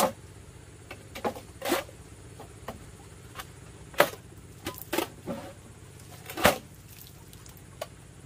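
Irregular sharp knocks and clicks, a dozen or so. The loudest strikes come at the start and about four, five and six and a half seconds in.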